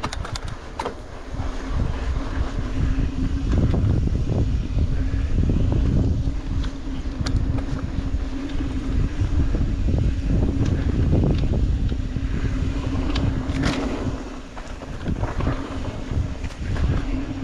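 A mountain bike rolling downhill on a dirt trail: wind buffeting the GoPro microphone over the rumble of knobby tyres on dirt, with frequent clicks and rattles from the bike over bumps and a steady buzz underneath.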